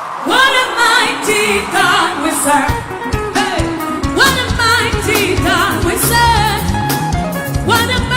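Gospel worship music: a lead voice singing wavering, held notes over bass and percussion, swelling in at the start.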